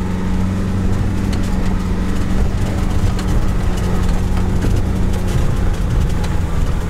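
Fiat Ducato camper van driving on a dirt road, heard from inside the cab: a steady engine hum with many small rattles and clicks from the van over the rough surface.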